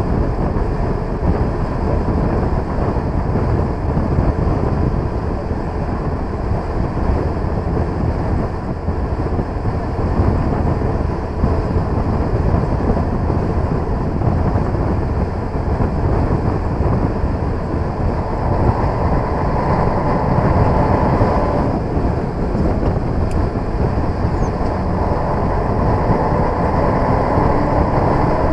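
Cab-interior sound of a Scania 111 Super truck's 11-litre six-cylinder diesel engine running while it drives. The engine noise is loud and steady, with a higher note coming in twice during the last ten seconds.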